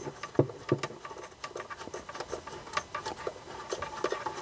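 Irregular small clicks and taps of antenna cable connectors being fitted and screwed onto an LTE/WLAN router box as hands handle it.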